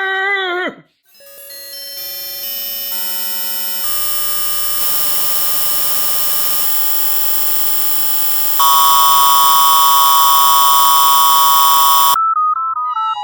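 A dense electronic drone of many steady tones layered on top of each other. It thickens as more tones come in every second or so, gets louder about eight and a half seconds in, then cuts off suddenly. Before it, a pitched whine ends within the first second; after it, a high electronic tone steps up and down.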